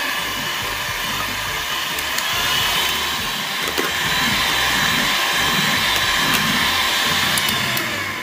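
Electric hand mixer running at high speed, its beaters whipping eggs and sugar to a thick, pale foam: a steady motor whine over a whirring hiss, with a few light clicks. It dies away near the end.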